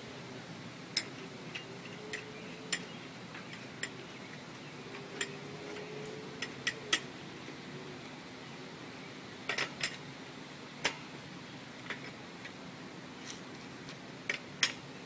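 Scattered sharp metallic clicks and light knocks, irregular and sometimes in quick pairs, as a BMX wheel is worked back into the fork dropouts and its axle hardware is handled.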